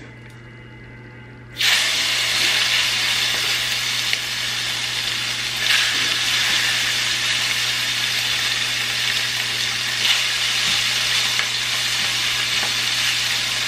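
Seasoned chicken thighs going into hot oil in a nonstick frying pan: the oil starts sizzling suddenly about a second and a half in and keeps up a steady sizzle as they fry. There are a couple of brief louder moments as the pieces are placed and moved with tongs.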